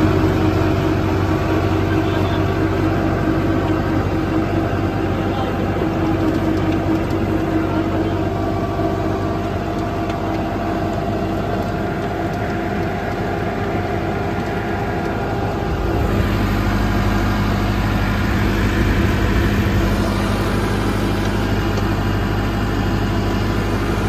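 Massey Ferguson 385 tractor's diesel engine running steadily under load while driving a 9.5-foot rotavator through dry soil. About two-thirds of the way through the sound shifts to a deeper, heavier note.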